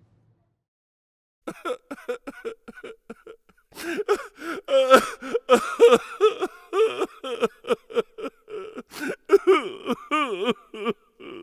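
A high-pitched human voice making short, quick vocal sounds without clear words. They begin about a second and a half in and run densely, with a wavering pitch near the end.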